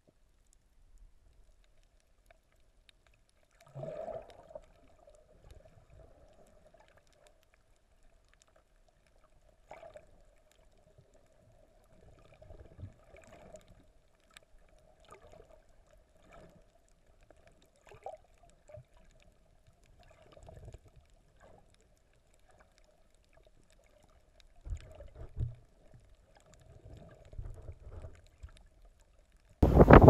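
Muffled underwater sound: a faint steady hum with scattered soft knocks and low thuds. Right at the end it switches suddenly to loud wind on the microphone.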